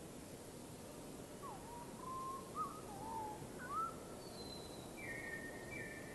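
A bird whistles a run of short notes that slide up and down, starting about a second and a half in, followed near the end by a thin high note and two brighter calls, over a steady hiss.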